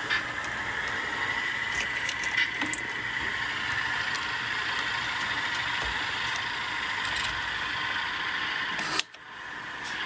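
Model diesel locomotive and caboose running along the layout track: a steady mechanical hum with scattered light clicks, and one sharp click about nine seconds in.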